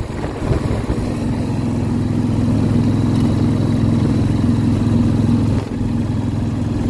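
Harley-Davidson touring motorcycle's V-twin running steadily at cruising speed while its tyres hum over the open steel-grid deck of a bridge, with a short dip in level about five and a half seconds in.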